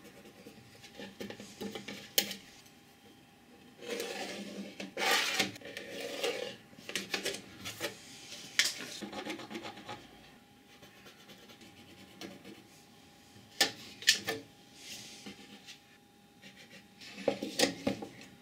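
A pen scratching lines across a round wooden board and a tape measure being handled and laid on it, in uneven bursts of rubbing and scraping with a few sharp clicks.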